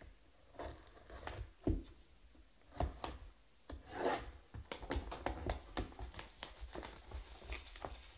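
Hands sliding a cardboard trading-card hobby box and cutting open its plastic shrink wrap with a small blade: rubbing and rustling, with a string of light clicks and taps that comes thickest about halfway through.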